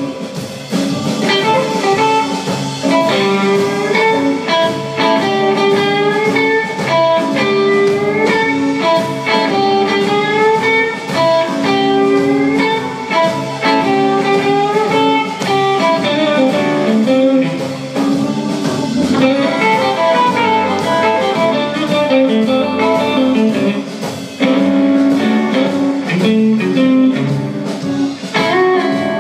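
Live electric blues: a Fender Stratocaster-style electric guitar plays lead lines with bent notes over drums and bass guitar.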